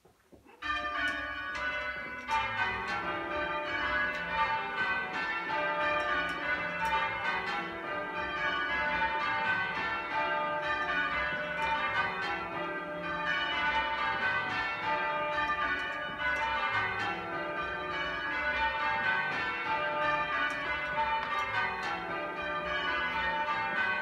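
A ring of eight church bells, tenor about 20 cwt, being change-rung, heard from the ringing chamber below the bells. The strikes start about half a second in, after a moment of quiet, and run on in an even stream of rows falling down the scale.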